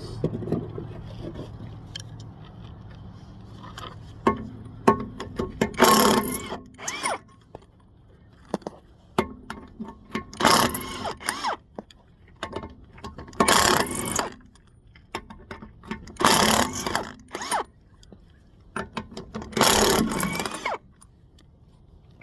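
Impact wrench run in five short bursts of about a second each, spinning the lug nuts off a rear wheel, with small clicks and clatter between the bursts. A low traffic rumble fills the first few seconds.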